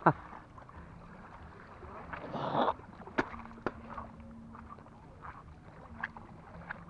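Footsteps crunching and clicking on wet coral reef rubble, with a louder scuffing rush of water and gravel about two and a half seconds in.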